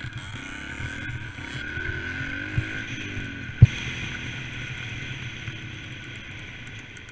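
Dirt bike engine running under throttle, its pitch climbing for a few seconds, then easing off toward the end. A sharp knock comes about three and a half seconds in, with a smaller one just before it.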